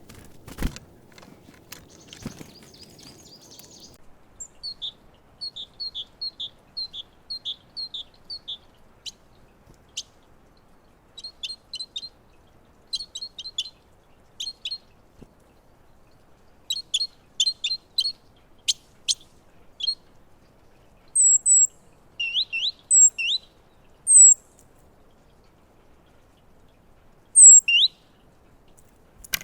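Great tits calling: a run of about eight short, evenly spaced high notes, then clusters of quick chirps and a few higher notes that slide downward. A few sharp knocks sound near the start.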